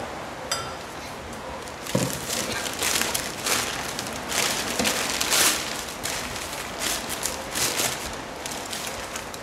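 Packing paper crinkling and rustling as wrapped items are pulled out of a cardboard box and unwrapped, in irregular crackly bursts, with a single knock about two seconds in.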